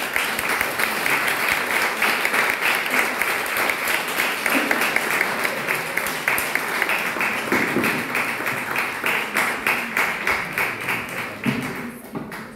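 Audience applauding: a dense, steady patter of many people clapping that thins out and dies away near the end.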